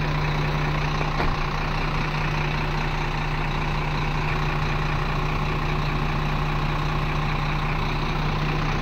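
Sinotruk mixer truck's diesel engine idling steadily, a low even hum.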